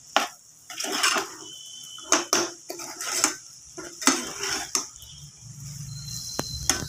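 A spoon scraping and knocking against a pan as brinjal and tomato curry is stirred: a string of irregular strokes, a few per second at most, thinning out near the end.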